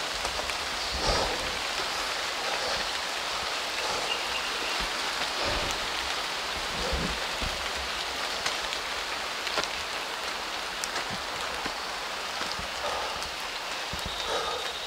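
Steady rain falling through the forest canopy and onto the leaf-covered ground, an even hiss, with a few soft low thumps.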